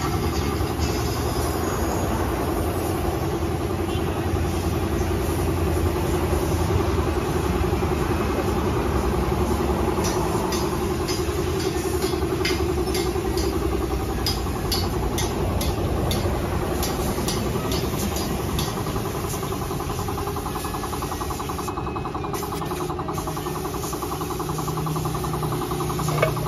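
Air compressor running steadily with a continuous mechanical hum, powering a paint spray gun that hisses as it sprays.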